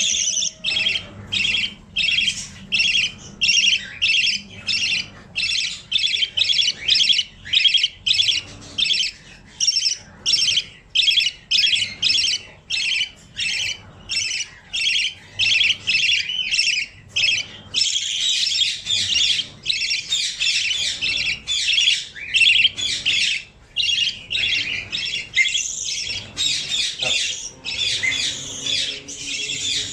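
Baby budgie squawking in quick, repeated harsh calls, a little under two a second, which run together into near-continuous chatter about eighteen seconds in.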